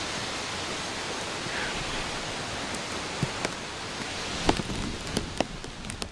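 Gusty storm wind blowing across the microphone as a steady rushing noise, with a scattering of sharp ticks in the second half.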